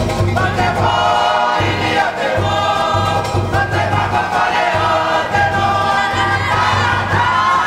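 A choir of massed voices singing a Cook Islands kapa rima song in several parts, over a string band and a steady low pulse.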